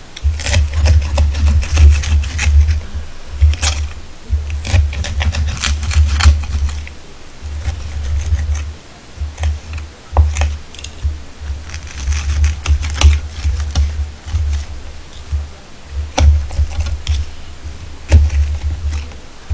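Steel knife and fork cutting a cheese pork cutlet on a ceramic plate: scattered clicks and scrapes of metal against the plate. A low rumble comes and goes in stretches of a second or two and is the loudest sound.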